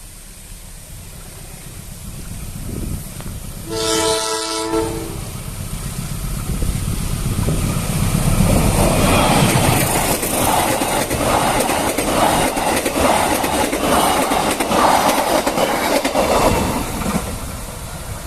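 An approaching diesel train sounds its horn once, a chord of several tones held for about a second. It then passes close by, a rising rumble with rapid clacking of the wheels over the rail joints that is loudest through the second half and eases slightly near the end.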